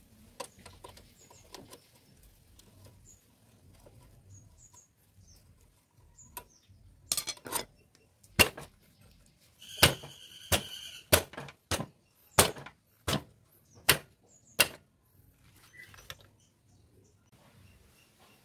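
About a dozen sharp metallic knocks during work on a motorcycle's rear wheel and chain assembly, coming roughly one to two a second over about eight seconds; one of them, about ten seconds in, rings briefly. Before the knocks there are only faint small ticks.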